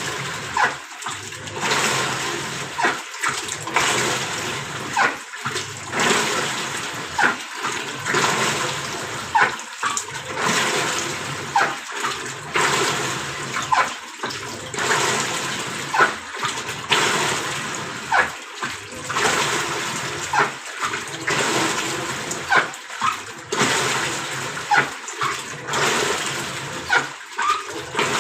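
Videocon 6 kg Digi Atlantic Eco washing machine in its wash cycle: the wash action churns the water, stopping briefly and reversing about every two seconds, with a sharp noise at each reversal. The machine makes a noise during the wash that the title puts down to a defective gearbox grinding.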